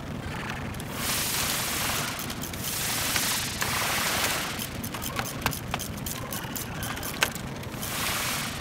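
Impact wrench hammering in several bursts of about a second each, loosening the starter and top transmission bolts, with sharp metallic clicks between the bursts.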